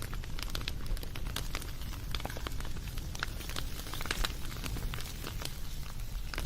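Wood fire crackling, with irregular sharp pops and snaps over a steady low rumble of burning.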